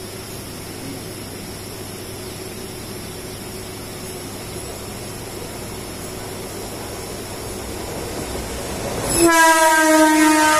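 Steady running noise of a moving train heard from on board, slowly growing louder as a MEMU closes in on the next track. About nine seconds in, a train horn blares suddenly as the MEMU draws alongside, a loud, steady chord of several notes held to the end.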